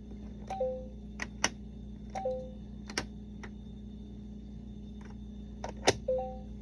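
LeapFrog Fridge Words toy: plastic letter magnets clicking as they are pulled from and pushed into the word slots. The toy gives a short two-note falling beep three times.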